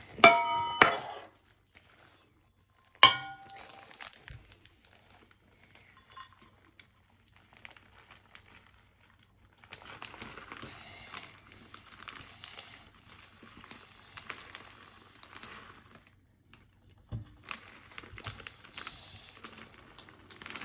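Kitchenware clinking against a mixing bowl, two loud ringing knocks in the first few seconds, likely a measuring cup tapped on the bowl to empty out shredded coconut. Later come long stretches of soft rustling and scraping.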